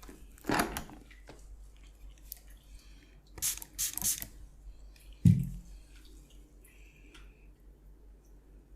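Hands massaging bare skin: a few short, sudden squishing and slapping sounds, the loudest a dull thump about five seconds in.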